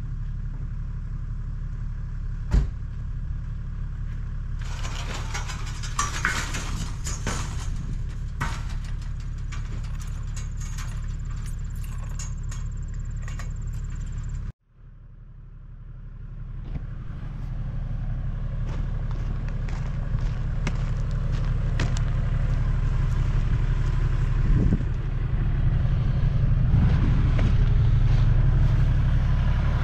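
Toyota LandCruiser Troopy engine idling steadily, with metallic clanks and rattles of a steel farm gate being handled. About halfway through the sound drops out for a moment and the idle comes back louder and closer.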